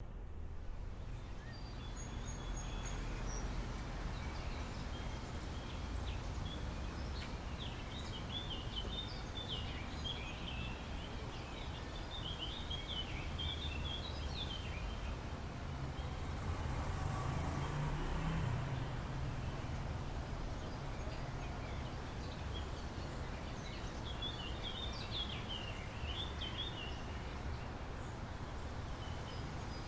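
Outdoor ambience: a steady low rumble with birds chirping in bursts, from about a quarter of the way in to the middle and again near the end. The rumble swells briefly just past the middle.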